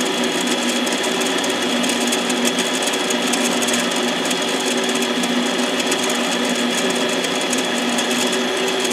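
Harbor Freight 7x10 mini lathe running steadily with a piston spinning in it, its motor and gear drive giving an even, unchanging whine.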